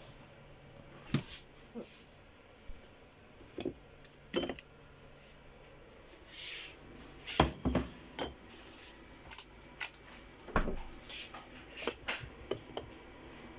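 Dishes and kitchen utensils being handled, with irregular clinks and knocks, a dozen or so scattered hits. The loudest come about seven and a half seconds in and about ten and a half seconds in.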